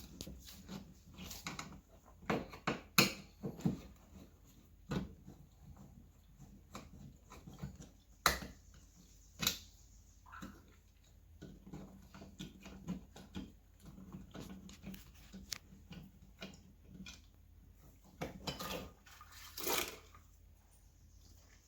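Irregular clicks, taps and knocks of hand work with tools and small parts at a wall, with a few sharper knocks and a longer scuffing patch near the end.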